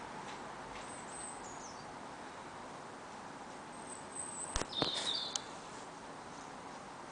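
Small birds giving high, thin chirps over a steady outdoor background hiss, with a short cluster of sharp clicks and chirps about four and a half seconds in.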